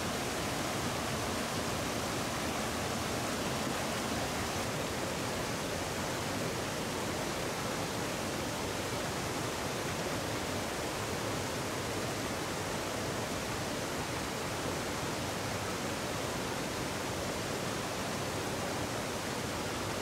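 Steady rushing of water: a small waterfall pouring over a stone weir and a shallow stream running fast over rocks.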